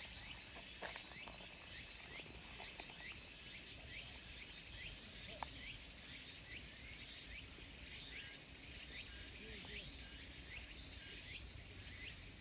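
Steady, high-pitched insect chorus, with short rising chirps repeating about twice a second underneath it.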